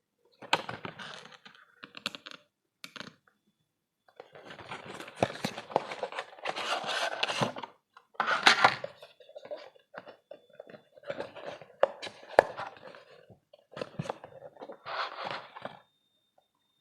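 Packaging being handled and opened: irregular bursts of rustling and crinkling, broken by sharp clicks and taps, with short silent gaps between.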